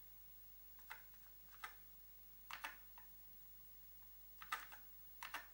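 Keys being pressed on a Commodore SX-64's detachable keyboard: a handful of separate clicks, some single and some in quick pairs, spread irregularly over a few seconds while stepping through on-screen menus.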